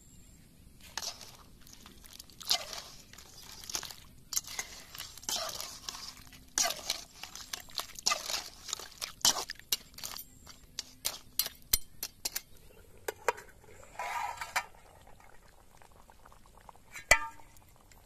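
A slotted metal spoon stirring a thick, wet crab curry in a metal pot, scraping and clinking against the pot in a run of short strokes, some clinks ringing briefly.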